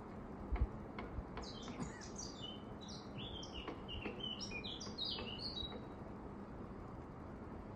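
A songbird singing one phrase of rapid high notes, many of them sliding downward, lasting about four seconds and starting a second and a half in. A low thump sounds about half a second in.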